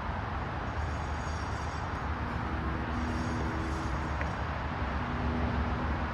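Steady low rumble of distant city traffic, with a faint hum that comes and goes twice in the middle.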